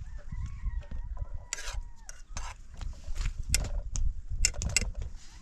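A rooster crowing once, one drawn-out call lasting about two seconds, followed by scattered sharp knocks and clicks.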